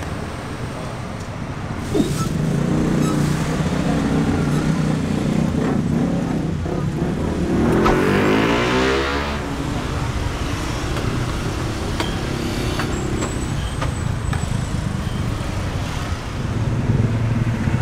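Roadside traffic: engines running steadily, with one vehicle passing close about eight seconds in. A few light clicks are heard.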